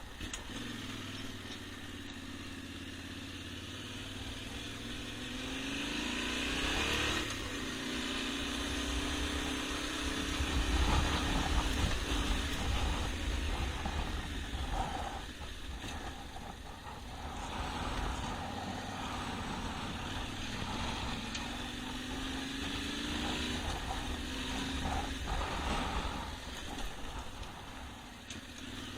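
Yamaha Ténéré 700's parallel-twin engine pulling a motorcycle off-road. Its pitch climbs for the first several seconds and drops back around seven seconds in, like an upshift, then runs on with rises and falls through a rougher, louder stretch, over steady wind and tyre noise.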